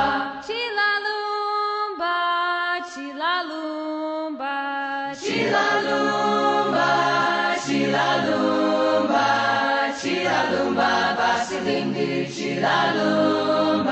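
Choir singing in harmony. For the first few seconds a single high voice sings alone with sliding notes, then the full choir, low voices included, comes back in about five seconds in.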